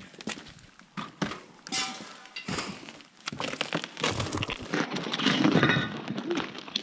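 Footsteps crunching through burnt debris and broken glass, with irregular clinks and crackles of scraps being stepped on; the crunching grows louder and denser from about four seconds in.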